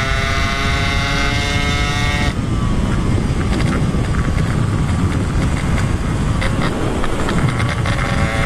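Yamaha RX-135 two-stroke single-cylinder engine held at high revs, a steady engine note. About two seconds in, the pitch dips slightly and the engine fades under heavy wind rush on the microphone. The bike is at the top of its gears with, in the rider's words, no power left.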